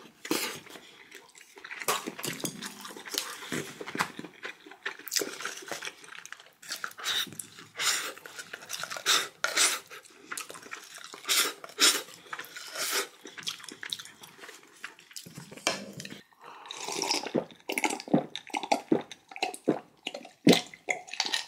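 Close-up eating sounds of spicy kimchi stew: many sharp lip smacks, slurps and chewing noises, with a wooden spoon knocking against a bowl. Gulps of water come near the end.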